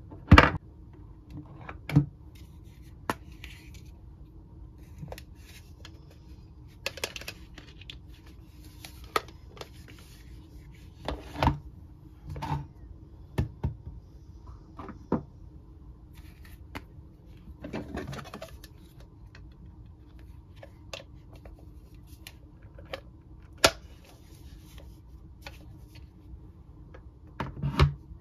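Hard plastic Mr. Potato Head toy parts clicking and knocking as they are handled, set down on a tabletop and pushed into the potato bodies. The clicks come at irregular intervals, with the loudest near the start and a few soft scraping rustles between them.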